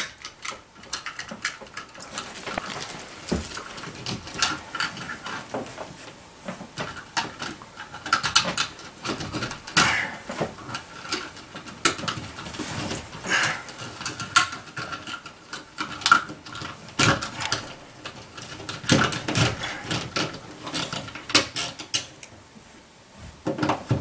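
Plastic cut-in electrical box and sheathed Romex cable being worked by hand into a drywall cutout: irregular clicks, scrapes and rustles of plastic, cable sheathing and drywall edge.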